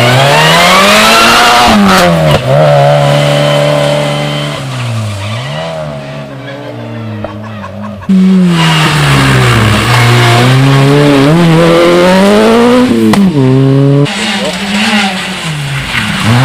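Rally car engines revving hard at full throttle, the note climbing and dropping with each gear change as the cars go by. The sound fades away about four seconds in, then jumps straight back to full loudness about eight seconds in with another car revving through its gears.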